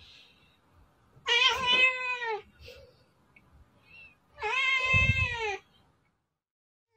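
Domestic cat meowing twice: two drawn-out meows about a second long each, a few seconds apart, each falling in pitch at the end.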